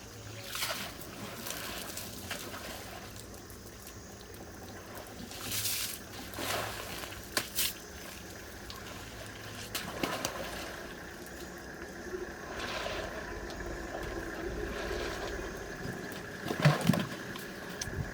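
Elephant splashing in water: a steady trickle and slosh broken by several separate splashes, the loudest near the end.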